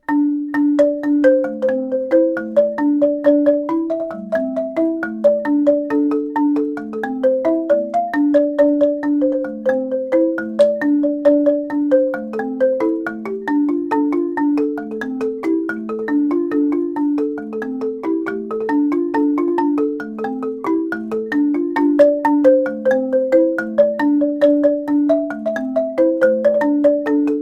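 Marimba de chonta (palm-wood marimba of the Colombian and Ecuadorian Pacific coast) played with mallets: a steady run of quick struck notes, with short repeated melodic figures over a low two-note pattern.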